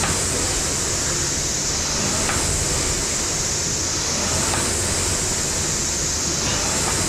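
Air-resistance fan flywheel of a Concept2-style rowing machine whooshing steadily, swelling a little with each rowing stroke about every two seconds.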